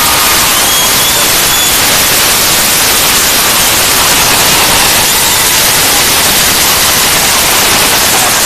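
Loud, steady static-like hiss that covers everything evenly from low to high, with no rise or fall, starting abruptly just before and burying the rink sounds beneath it.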